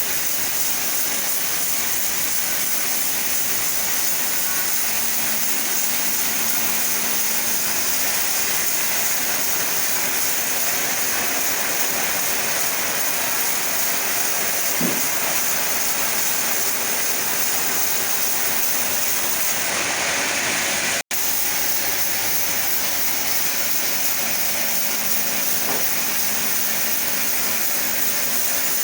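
Chainsaw running steadily under load, ripping lengthwise through sapodilla wood, with an even, hissing cutting noise. It cuts out for an instant about three-quarters of the way through.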